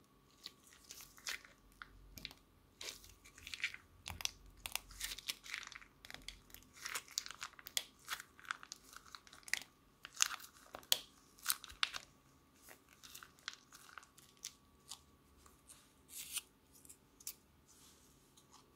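Clear slime packed with small plastic beads squeezed from a plastic piping bag into a bowl: irregular crackling and popping clicks, thickest through the middle and thinning out toward the end.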